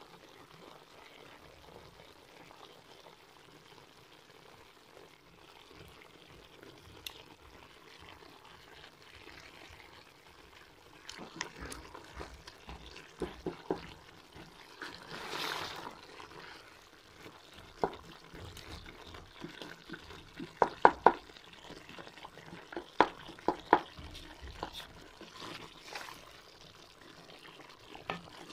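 Chicken, tomatoes and ginger-garlic paste simmering and sizzling in an aluminium pot, a steady faint hiss. About a third of the way in, a spoon starts stirring and knocking against the side of the pot with sharp clacks, the loudest ones coming in clusters about two-thirds through.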